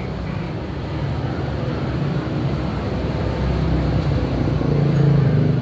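Steady low mechanical hum of running machinery, growing a little louder toward the end.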